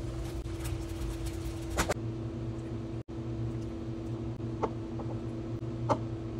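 A steady mechanical hum, one constant tone over a low rumble, runs throughout. Over it come a few light clicks of a silicone spatula: once against a saucepan as pesto is stirred into pasta, then twice more near the end.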